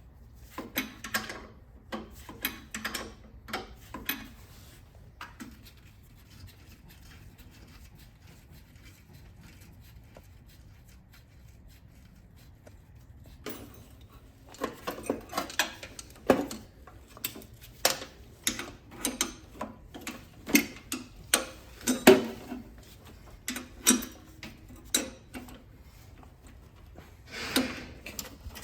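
Wrench and metal parts clicking and clinking while a VW Beetle carburetor is unbolted, in two spells of irregular sharp clicks separated by several quiet seconds.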